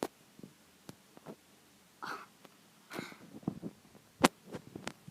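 Small metal chain clinking and tapping in irregular light clicks as a kitten plays with it, with one sharper click near the end. A couple of short, soft breathy puffs come in between.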